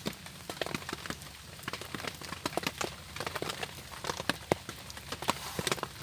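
Small campfire of dry grass tinder and thin split wood sticks crackling: a quick, irregular run of sharp pops and snaps as the kindling catches.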